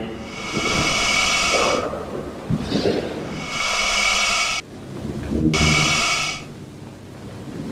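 Sound-designed Saurophaganax vocalization, a fictional theropod dinosaur call: a run of roars and growls with a low pitched rumble under a hissing, breathy upper layer. There are about four calls, the last around six seconds in, and then a quieter tail.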